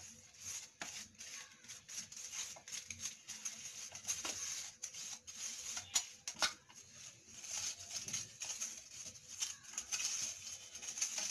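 Fingers smearing butter around the inside of an aluminium cake tin: faint, irregular rubbing and scraping with light clicks against the metal.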